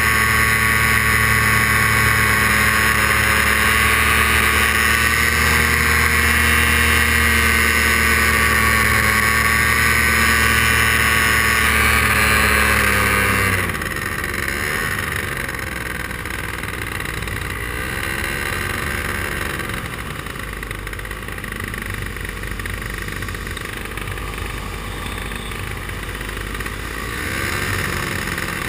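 Paramotor engine running steadily at high power, then throttled back sharply about halfway through to a lower, wavering speed. It picks up a little again near the end.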